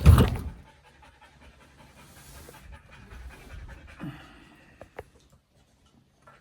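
A dog panting softly, with a loud knock at the very start and a sharp click about five seconds in.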